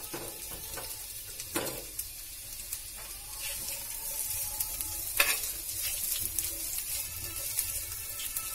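Freshly chopped onions sizzling in hot mustard oil in a cast-iron skillet as a steel spoon stirs them, scraping and knocking against the pan. The loudest knock comes about five seconds in.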